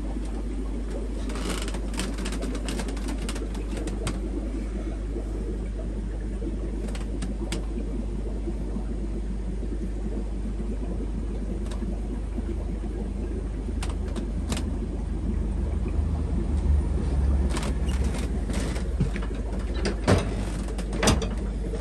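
Steady low hum of aquarium equipment running in a fish room, with scattered clicks. It grows a little louder and rougher near the end, with a few sharper knocks.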